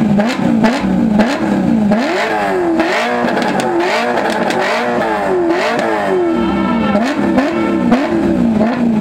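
BMW M3's naturally aspirated V8 being revved hard through its quad exhaust in a series of quick throttle blips, the engine note climbing and dropping over and over, with one longer, higher rev about two seconds in.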